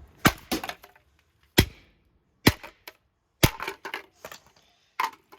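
Repeated sharp blows striking a vintage ceiling fan regulator's casing to break it, irregularly spaced with a quick flurry of hits about two-thirds of the way in.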